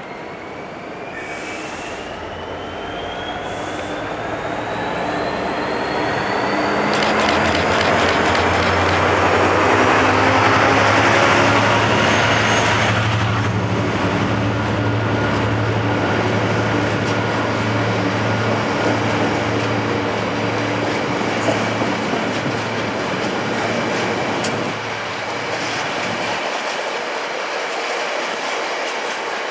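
GB Railfreight Class 66 diesel locomotive passing with a coal train. Its engine note grows louder, peaks about ten seconds in and fades over the next dozen seconds. The coal wagons then roll on with wheel clickety-clack and a high wheel squeal.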